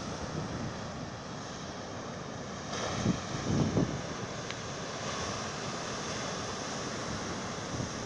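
Ocean surf breaking and washing over a rocky shore in a steady rush, with a louder surge about three seconds in.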